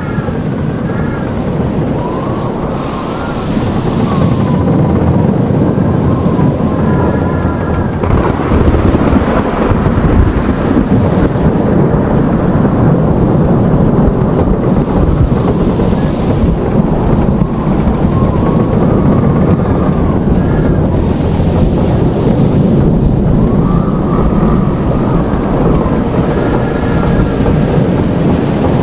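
Storm sound effect of strong wind and heavy waves: a loud, dense, continuous rumbling noise, with thin wavering whistling tones that come and go over it.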